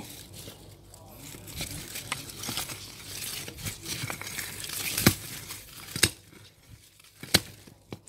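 Hands scraping and rustling through dry, stony soil while digging out a sweet potato, with three sharp clicks in the second half.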